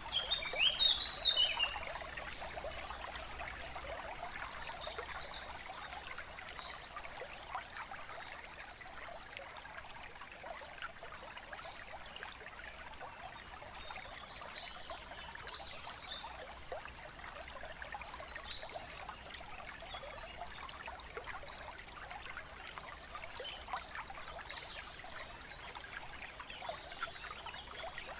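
A stream trickling steadily, with birds chirping briefly now and then above it; the birdsong is louder and busier in the first couple of seconds.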